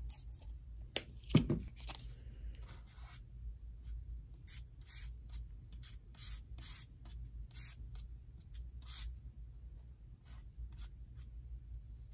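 A knock and then a heavier thud about a second in. Then the edge of a clear plastic ruler is dragged over paper in short, separate strokes, scraping as it spreads a dab of acrylic paint across white cardstock.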